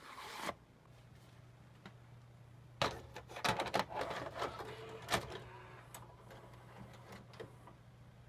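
Faint mechanical clicking and rattling, clustered from about three to five seconds in, over a steady low hum.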